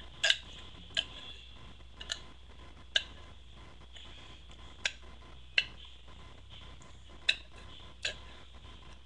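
A person's throat making short, sharp gulping clicks, about eight of them at uneven intervals, as air is swallowed to work up a burp without soda.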